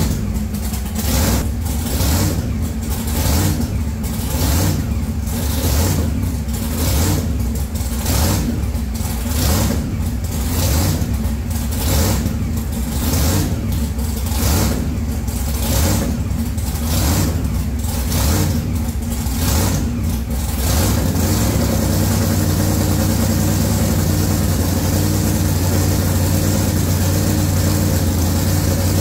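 Supercharged engine of a custom pickup running in a garage. It surges about once a second at first, then settles into a steady idle about twenty seconds in.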